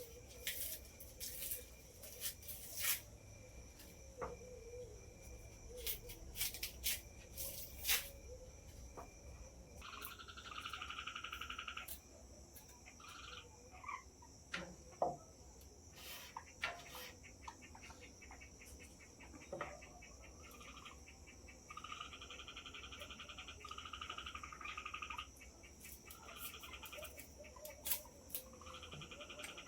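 Evening chorus of crickets holding a steady high trill, with frogs calling in pulsed trills that come in bursts of one to three seconds, mostly in the second half. Scattered sharp clicks in the first few seconds.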